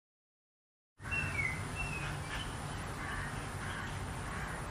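Outdoor ambience: a few short, high bird chirps over a steady low rumble, starting suddenly about a second in after silence.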